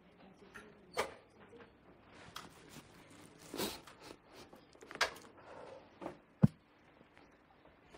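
Paper handling at a lectern: a few short clicks and a brief rustle of paper, then one sharp knock about six and a half seconds in, the loudest sound.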